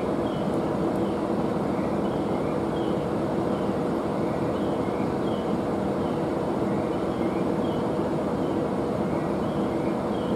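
JR East 701 series electric train creeping toward the platform: a steady, even hum.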